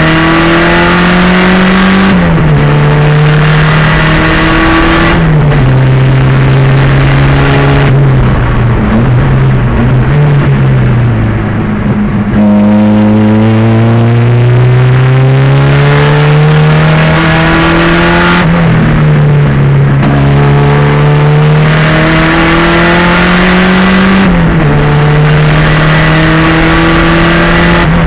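A 1987 Fiero race car's 2.0-litre turbocharged engine under hard acceleration. It climbs in pitch and drops back with quick upshifts twice early on. It falls and wavers while slowing through the middle, then pulls up again with two more upshifts.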